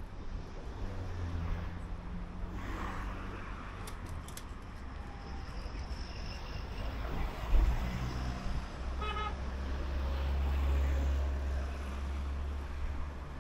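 Street traffic: vehicle engines rumbling past, swelling as one goes by in the second half. A sudden low thump a little past the middle, and a vehicle horn gives one short toot just after it.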